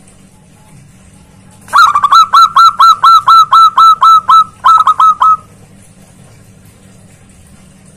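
Zebra dove (perkutut) giving a loud, fast run of short cooing notes, about four or five a second for some three seconds. The run has a brief break near the end.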